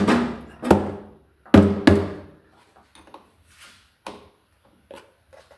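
Mallet tapping a tractor battery's cable terminal down onto its post, knocking corrosion off. There are four sharp strikes in the first two seconds, each ringing briefly, then a few lighter knocks.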